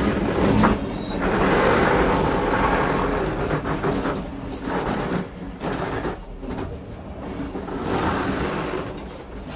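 Moving train heard from the gangway between two wagons: loud rumble and rattle of wheels on track and the clanking coupling, swelling and easing off over a few seconds and growing quieter near the end.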